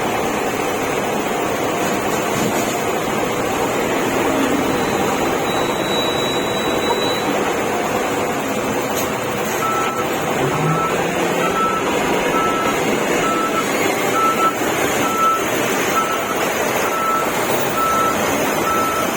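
Heavy equipment engine running steadily. From about ten seconds in, a reversing alarm beeps about once a second.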